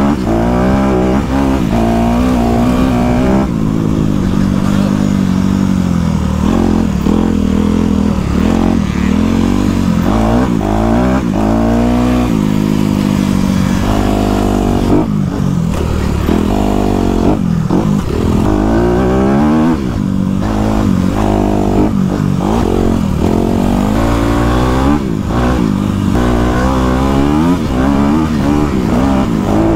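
Motocross bike engine heard from the rider's own bike, revving hard and repeatedly rising in pitch, then dropping back as the throttle is rolled off and gears change, lap-riding over the dirt track.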